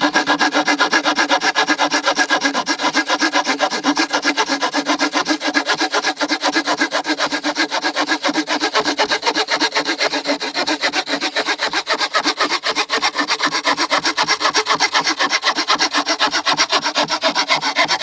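Saw blade of a Boker Tech Tool Carbon 4 multitool cutting through a wooden batten by hand, fast, even back-and-forth rasping strokes at about four a second.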